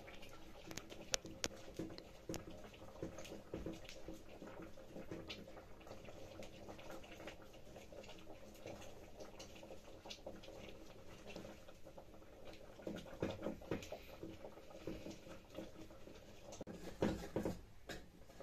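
Wooden churning stick twirled between the palms in a metal pot of steaming liquid, giving a quiet, irregular patter of small knocks and swishes. Near the end comes a louder clatter as a ladle goes into the pot.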